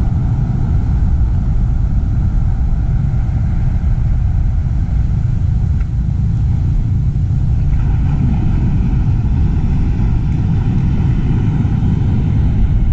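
An engine running steadily: a low rumble with a faint steady hum above it that grows a little stronger about eight seconds in.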